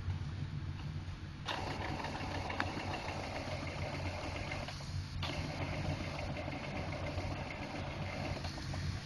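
Brother MFC-J615W inkjet printer's mechanism running over a steady low hum. It starts abruptly about a second and a half in, pauses for half a second near the middle, then starts again.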